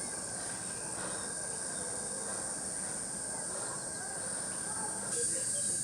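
Steady high-pitched drone of insects, which gets louder about five seconds in, with faint distant voices under it.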